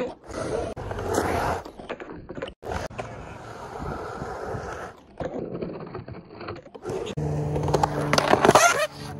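Skateboard wheels rolling and carving on concrete ramps, the rolling noise breaking off and starting again abruptly several times, with a louder scrape near the end as the board works the top of a quarter pipe. A steady engine hum joins in about seven seconds in.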